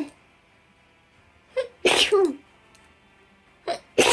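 A person sneezing rapid-fire, two seconds apart. One full sneeze comes about halfway through and the next begins right at the end, each with a short burst just before it and a voiced tail that drops in pitch.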